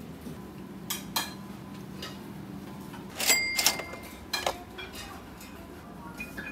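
Dishes and cutlery clinking: a few sharp clinks about a second in, and the loudest pair around three and a half seconds in, one of them with a brief ringing tone. Under them runs a steady low room hum.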